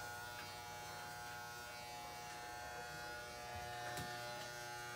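Electric shaver running with a steady buzz, held to the face while shaving.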